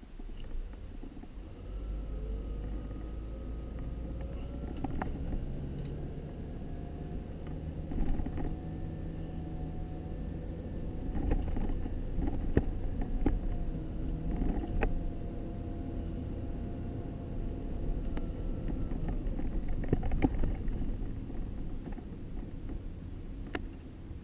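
Car engine and road noise heard inside the cabin as the car pulls away and drives, the engine note rising at the start and then steady. Scattered sharp knocks and rattles from the car going over bumps.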